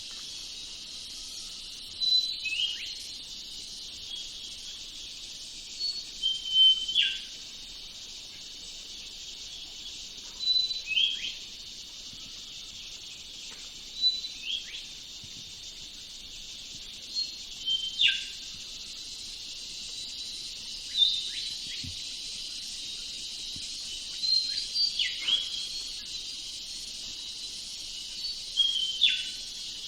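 Leafbird chirping: short high notes and quick downward-sliding whistles in little clusters every few seconds, over a steady high hiss of insects.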